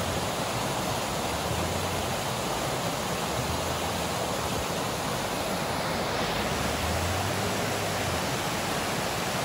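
Steady rush of a small creek cascading over rocks and logs at a crossing, with a faint low engine hum from the pickup coming and going underneath.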